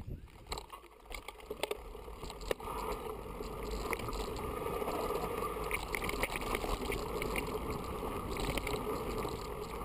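Mountain bike riding fast down a dirt forest trail: tyres rolling over the ground, with scattered clicks and rattles from the bike. The rolling noise grows louder about two and a half seconds in.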